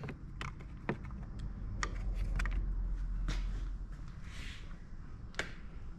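Scattered light clicks and rustling handling noise as the plastic speaker grille on a motorcycle fairing is worked loose and lifted off, with a low rumble through the middle seconds.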